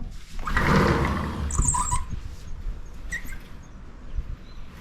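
Old wooden floorboards creaking and squeaking underfoot as people walk through the house, with short squeaks among rustling steps.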